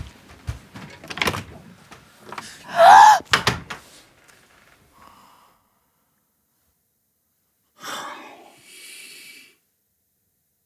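Knocks and thuds with a short, loud squeak about three seconds in, then a lull and a person's breathy gasp near the end.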